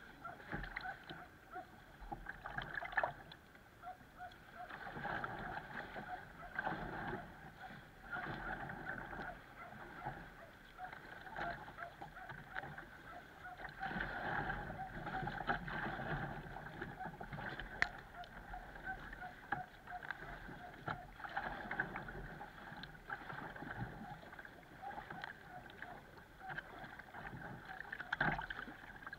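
Water sloshing and splashing against the hull of a plastic sit-on-top kayak as it is paddled, heard close up from its deck, swelling and fading every second or two with the strokes.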